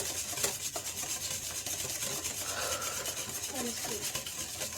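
Egg, sugar and oil batter being mixed by hand in a bowl: a steady scraping with quick, regular strokes.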